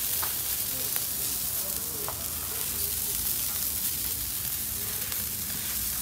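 Whole tilapia sizzling steadily on a charcoal grill in hinged wire grill baskets, juices and fat hissing on the hot coals, with a few small crackles.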